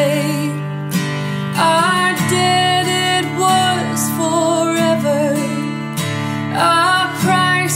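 A woman singing a worship song over a strummed acoustic guitar, holding long notes.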